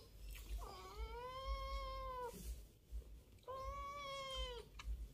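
Long-haired grey domestic cat meowing twice: two long drawn-out meows, the first about a second and a half, the second about a second, each rising at the start and falling away at the end.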